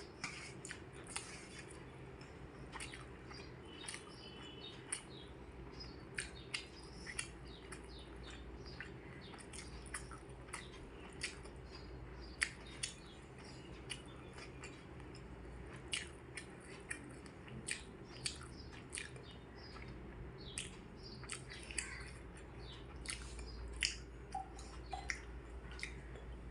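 A person chewing and eating, with irregular wet mouth clicks and smacks over a steady low hum.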